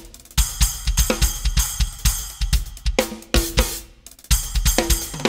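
Full drum kit played in a busy groove: kick drum, snare, hi-hat and cymbal crashes, demoing a freshly mounted 8-inch Meinl Byzance Traditional splash cymbal. There is a brief lull about four seconds in.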